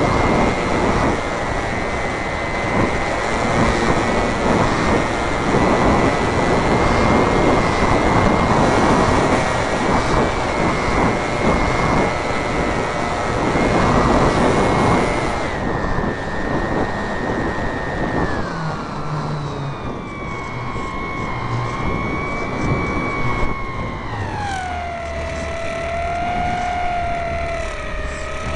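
Robbe Cessna Cardinal radio-control model airplane's motor and propeller whining in flight, heard from the onboard camera with heavy wind rushing over the microphone. The whine holds a steady high pitch, then drops about halfway through and wavers lower as the throttle is eased back, falling further near the end.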